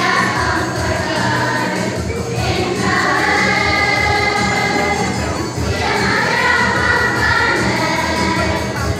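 Choir singing over music, holding long notes in two drawn-out phrases, the first about three seconds in and the next about six seconds in.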